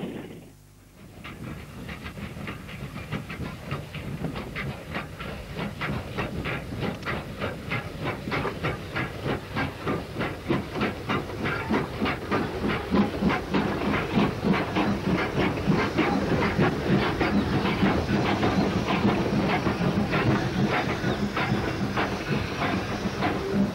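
Two South Maitland Railways 10 class steam tank locomotives working a loaded coal train, their exhaust beating rapidly and regularly. The beats come in just under a second in after a short gap and grow steadily louder.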